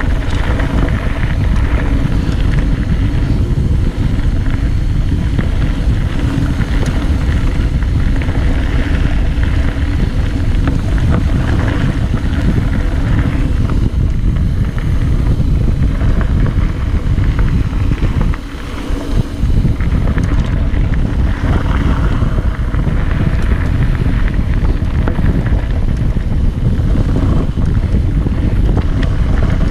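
Wind buffeting the camera microphone over the rumble and rattle of a mountain bike's tyres on a dirt trail during a fast downhill run. The noise eases briefly about 18 seconds in.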